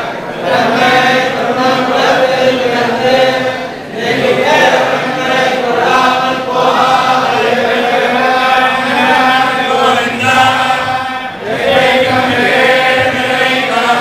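A group of men chanting a Hindu religious recitation together, steady and continuous, with brief pauses for breath about four seconds in and again near the end.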